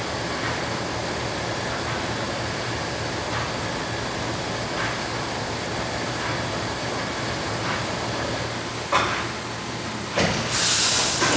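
Mazak CNC machining center running: a steady machine hum and hiss with faint ticks about every second and a half. Near the end, two sharp clicks are followed by a loud blast of air hiss.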